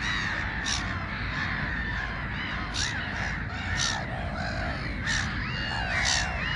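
A flock of black-headed gulls calling: many overlapping harsh, arched calls with sharp screeches about once a second, over a steady low rumble.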